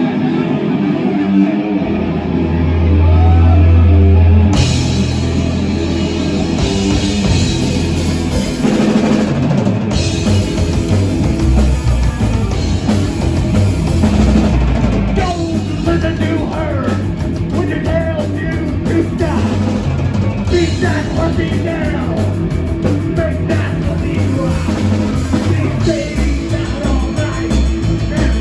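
Live psychobilly band playing a fast rock song: low bass notes open it, then drums with cymbals and guitar come in a few seconds later, and the full band plays on.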